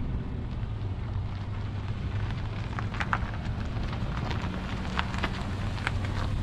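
A sedan driving slowly over a gravel lot toward the microphone: a steady low engine hum, with the tyres crunching and popping loose gravel, the crackles coming thick from about halfway in as the car pulls close.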